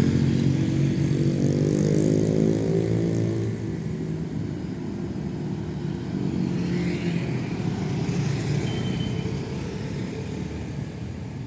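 Road traffic of motorcycles and cars passing. In the first few seconds one engine's note rises as it accelerates past, then it settles to a steadier mix of engines and tyre noise.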